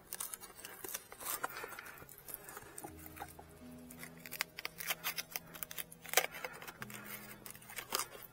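Irregular clicks and rustles of a bag's straps and fasteners being fixed to an electric bike's frame, over quiet background music with sustained low notes.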